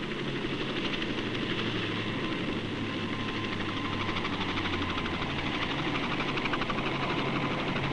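Small car engine of a homebuilt powered-glider aircraft running steadily in flight, a fast even buzz that grows slightly louder as the plane comes in low over the runway.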